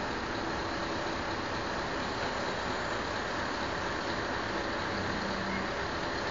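Truck-mounted crane's engine and hydraulics running steadily, a constant noise with a faint low hum.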